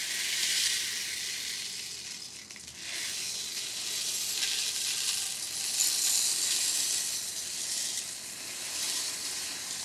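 Small stainless steel tumbling media (a jewelry mix of tiny pins, cylinders and balls) pouring from a plastic bottle into a vibratory tumbler bowl of soapy water and metal parts. It makes a steady hissing rattle that dips briefly about two and a half seconds in.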